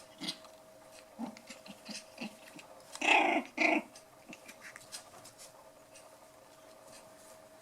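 Five-week-old poodle puppies playing, with scattered light scuffling and small puppy growls, and two short, loud growls about three seconds in.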